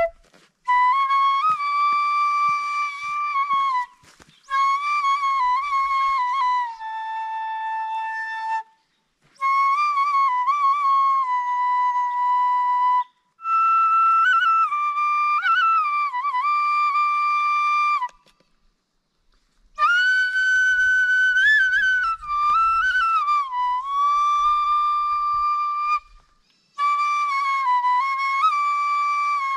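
Background music: a solo flute-like wind-instrument melody, played in ornamented phrases of held and bending notes with short pauses between them.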